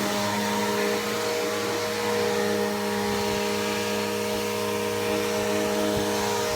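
Bissell PowerForce Helix Turbo upright vacuum cleaner running steadily, a constant motor hum with a whine above it.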